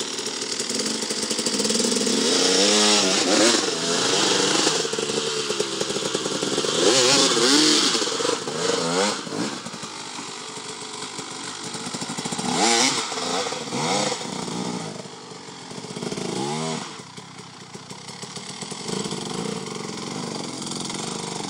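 Enduro dirt bike engine revving up and down again and again in short bursts as the rider picks the bike over rocks and logs on a steep climb.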